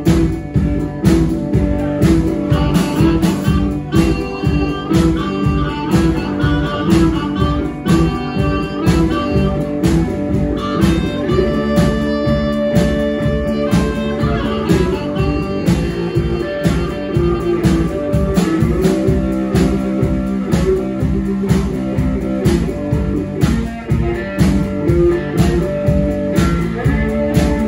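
Live blues band playing: harmonica cupped to a microphone, hollow-body guitar, and a drum kit keeping a steady beat, with long held harmonica notes above it.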